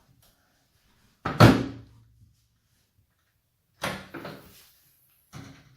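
Hinged front panel of a Beko HCA62541B cooker hood knocking against its housing: one loud thunk with a short ringing tail about a second in, then two softer knocks near the end.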